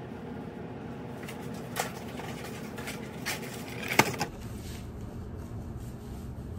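Handling noise as small objects and papers are moved about on a countertop: soft scrapes and light taps, with one sharp click or knock about four seconds in, the loudest sound. A steady low room hum runs underneath.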